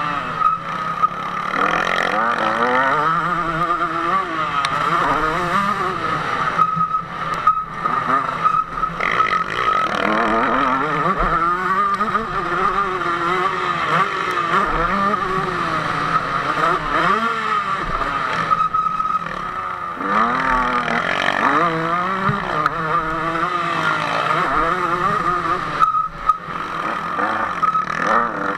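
KTM 150 SX two-stroke motocross engine ridden hard, its pitch climbing and dropping again and again as the rider works through the gears, with brief dips where the throttle is shut.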